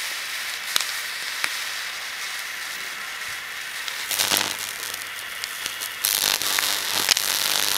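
Mains-voltage electric arc between a tin-can electrode water heater and the earth, hissing and crackling with a few sharp snaps. About four seconds in it flares into a louder crackle with a mains buzz, and it grows louder again about six seconds in.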